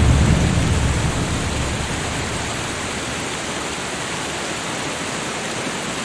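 Waterfall's rushing water: a steady, even hiss, with a low rumble that fades away over the first couple of seconds.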